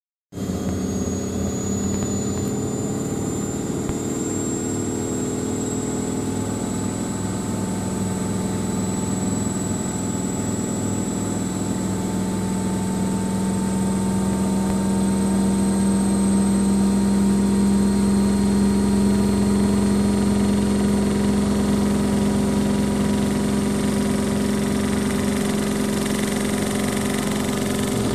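Miele Softtronic W 2557 WPS washing machine running, most likely in its spin, with a steady drum hum under a motor whine that rises slowly in pitch as the speed climbs. It grows somewhat louder about halfway through.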